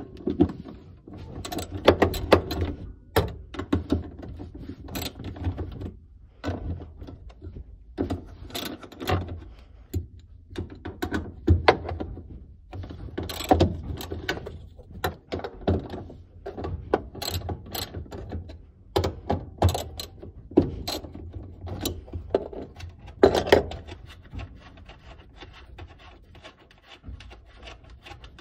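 Ratchet wrench clicking and metal clinks from undoing the 10 mm nuts on a fuel pump assembly's mounting flange. The clicks and knocks come in irregular clusters with short pauses between them.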